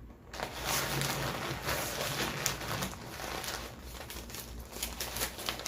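Fast-food wrappers and packaging being crumpled and crinkled by hand, a dense run of crackling rustles that starts a moment in, as the leftover meal is cleared up.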